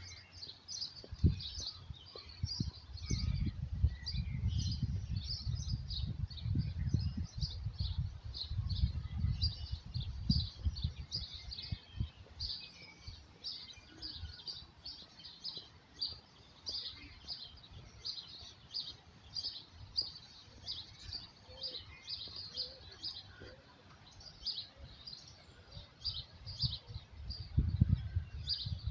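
Small birds chirping in a steady chorus of many short, high calls. A low rumbling noise comes and goes underneath, strongest in the first third and again near the end.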